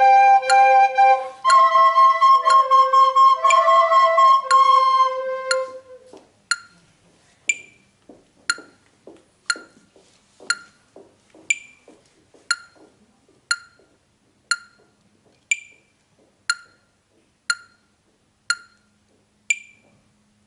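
Recorders playing held notes together over a metronome app's ticking; the recorders stop about six seconds in. The metronome goes on alone with sharp electronic ticks about once a second.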